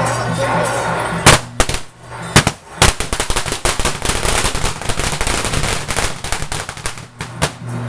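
A string of firecrackers going off in a rapid, uneven crackle of bangs, starting about a second in and stopping near the end. Procession music plays before the firecrackers start.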